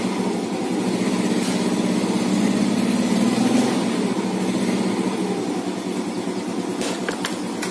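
2010 Yamaha Mio carburettor scooter's single-cylinder four-stroke engine running and given a little throttle, the revs swelling slightly a couple of seconds in and settling back. A few clicks near the end.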